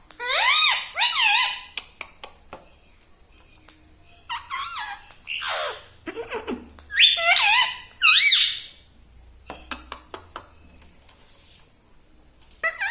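Indian ringneck parrot squawking and calling in four short bouts of bending, sweeping notes, one of them sliding down in pitch.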